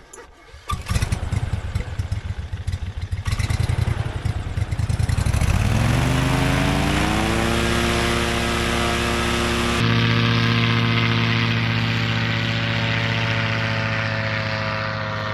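Paramotor trike's propeller engine starting about a second in and running unevenly at low speed, then revving up smoothly over a couple of seconds to a steady high-power drone as the wing comes up for the takeoff run. Near ten seconds the sound changes abruptly to another steady engine-and-propeller drone.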